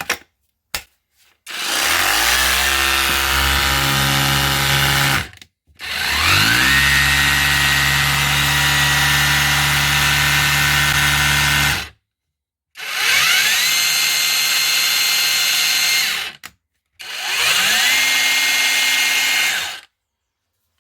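Cordless SDS hammer drill, a copy of the DeWalt DCH243, run four times on a freshly fitted battery: each run the motor whines up in pitch to a steady speed, holds for a few seconds and stops. A few sharp clicks come just before the first run.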